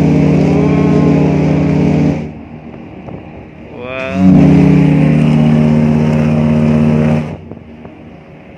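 A cruise ship's horn sounds two long, deep, steady blasts as the ship leaves port. The first ends about two seconds in; the second starts about four seconds in and lasts about three seconds.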